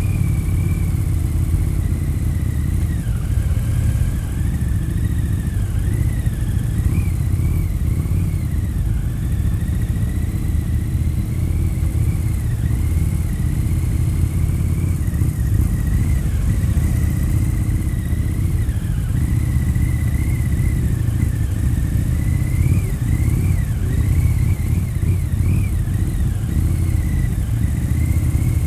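Harley-Davidson touring motorcycle's V-twin engine running steadily while riding at low speed: a continuous deep rumble, with a faint wavering high whine above it.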